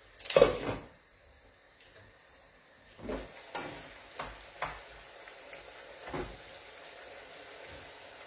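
Mezze maniche pasta simmering in broth in a skillet with a faint steady sizzle, stirred with a spoon that scrapes the pan in a few short strokes from about three seconds in. A short, louder noise comes right at the start.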